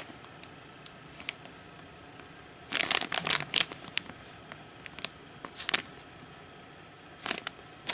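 Clear plastic sleeves holding artist trading cards crinkling and rustling as they are handled, in short bursts: the longest and loudest about three seconds in, more near six and seven seconds, with small ticks between.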